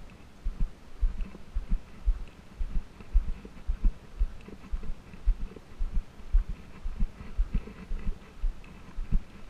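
Dull, low thumps of footsteps jolting a body-worn or handheld camera, about two a second, as someone walks a sandy dirt trail.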